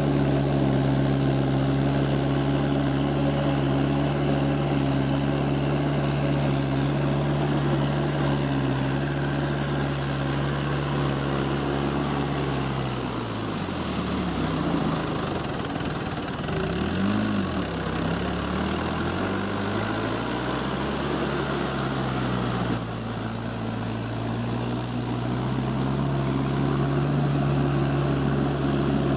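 Mahindra tractor diesel engine running steadily while puddling with cage wheels. About 13 s in its pitch drops sharply and swings down and up for several seconds as the cage wheels churn through deep mud, then it settles back to a steady run.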